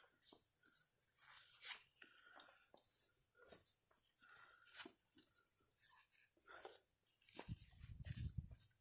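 Faint rustling with scattered small clicks and crackles of things being handled, and a brief low rumble about three-quarters of the way through.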